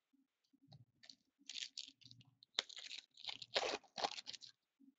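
Foil wrapper of a trading-card pack being torn open and crinkled: a run of short, noisy rips and rustles over about three seconds, loudest a little past the middle.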